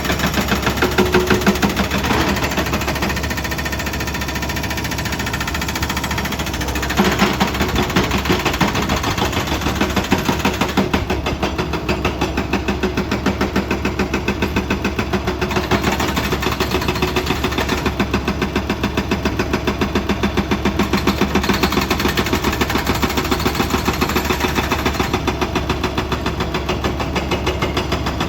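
Excavator diesel engine running with a fast, even clatter, picking up a little about seven seconds in.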